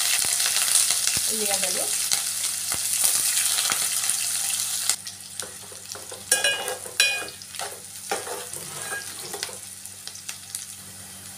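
Chopped onions and green chillies sizzling in hot oil in a metal pot, loud at first and dying down about five seconds in as they are stirred. A metal spoon scrapes and knocks against the pot, twice sharply a little after that.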